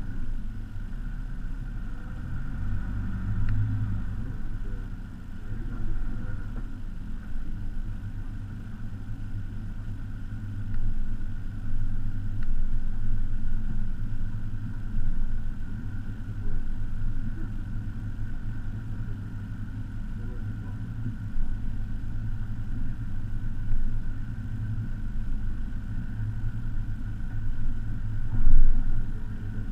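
Iveco Daily 4x4's diesel engine pulling under load as the van crawls up a steep, rocky slope. It is a low rumble that swells and eases, with a faint steady whine above it and a brief louder bump near the end.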